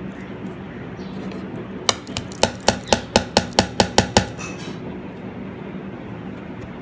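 A quick run of about a dozen sharp taps on crockery, roughly five a second, lasting about two seconds, from a bowl being knocked against plates.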